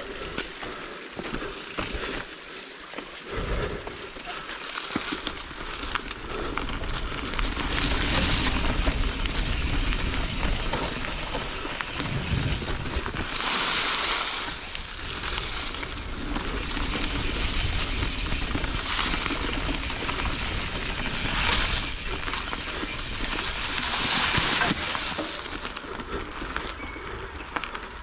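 Canyon Strive enduro mountain bike riding fast down a forest trail: knobby tyres rolling over dirt, roots and dry leaves, and the bike rattling over bumps. The rushing noise swells and fades several times as speed rises and falls.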